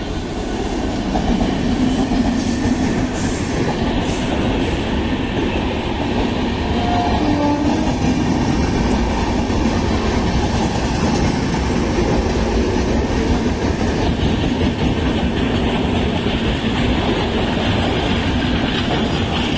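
Electric-hauled train of double-decker passenger coaches passing at speed: a steady rumble and clatter of wheels on the rails, getting louder about a second in.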